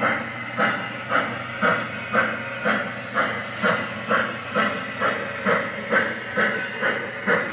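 Steam-locomotive chuffing from the MTH Proto-Sound 3 sound system in a 1:29-scale Union Pacific FEF-3 #844 model, played through the locomotive's speaker: even, hissing chuffs at about two a second as the engine moves slowly, over a low steady hum.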